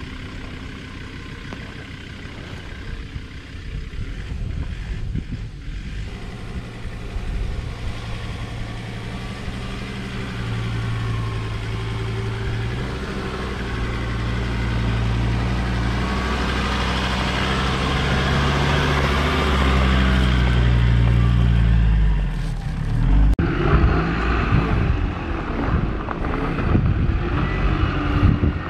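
Ford Ranger PX ute's engine pulling slowly at low revs up a rocky, rutted climb, growing louder as it approaches, with the tyres crunching over rock and loose gravel. About five seconds before the end the sound changes suddenly to an uneven rumble with knocks.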